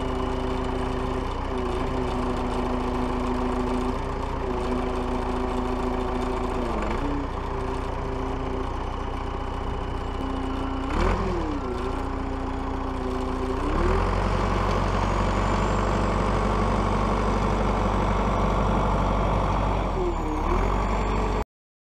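Perkins 4.236 four-cylinder diesel in a JCB 1400B backhoe running, its note dipping briefly several times as the loader hydraulics are worked, and running louder from about two-thirds of the way through.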